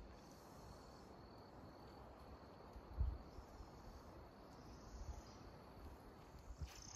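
Faint, steady chirring of insects, with a few dull low thumps; the loudest comes about three seconds in.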